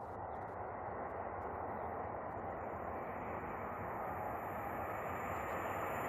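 KTX-Sancheon high-speed train approaching through a tunnel: a rushing rumble with no distinct tone, growing steadily louder as it nears the tunnel mouth.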